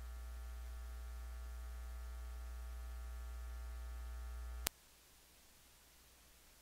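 Steady electrical mains hum with a buzzy stack of overtones, which stops with a single click about two-thirds of the way through.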